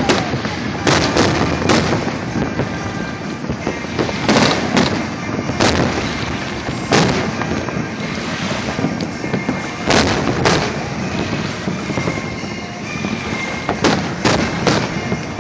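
Aerial fireworks shells bursting: about a dozen sharp booms at uneven intervals, some in quick clusters of two or three.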